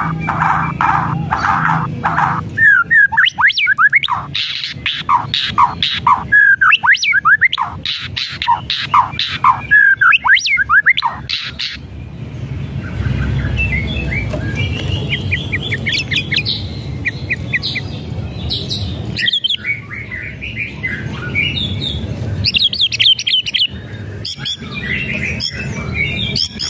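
White-rumped shama singing: loud, rapid whistled phrases of sharp sweeping notes mixed with harsh rattling 'kretekan' calls, the excited territorial song keepers play to provoke other shamas into singing. Past the middle it turns softer, to fast trills and ticking note series, then rises again near the end.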